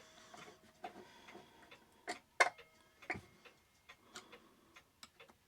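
Scattered small metal clicks and taps, at irregular moments, from a screwdriver and mounting screws on a clock movement. A few are followed by a faint metallic ring.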